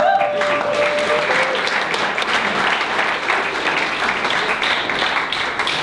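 Audience applauding, a dense steady patter of many hands clapping. One voice calls out a held cheer over the first second or so.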